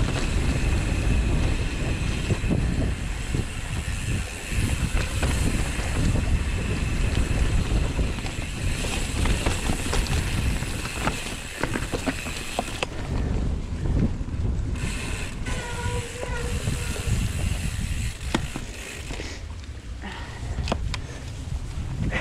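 Mountain bike rolling down a dirt singletrack: tyre and trail rumble with the bike's rattles and clicks, and a ratcheting rear freehub buzzing while the rider coasts, with wind on the microphone.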